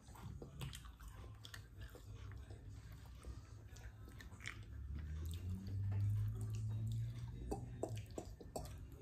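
Mouth-close chewing and crunching of chocolate gingerbread cookie, with small crisp clicks throughout. A low steady hum sets in past the middle and lasts a few seconds, the loudest part.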